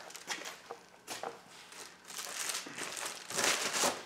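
A padded plastic mailer being torn open and handled, crinkling and rustling in irregular scratchy spells, loudest near the end.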